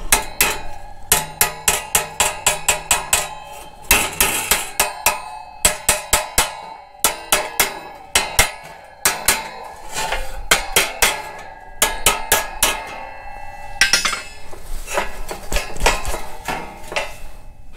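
Hammer striking a heated steel grille slat backed by a dolly: runs of quick, ringing metal blows, several a second, with short pauses. The hammering heat-shrinks stretched metal, driving the red-hot spot back down.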